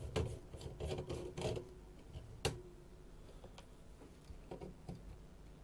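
A screwdriver undoing the small Pozidriv screws that hold a motorised fader in its panel: faint scraping and clicking over the first second and a half, one sharp click about two and a half seconds in, then a few light ticks.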